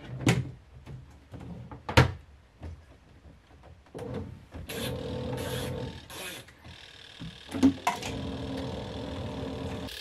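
Knocks and clunks from handling a twin-tub washing machine's tub, lid and control knobs. From about four seconds in there is a steady running sound with three short hissing bursts, and another sharp knock near the end.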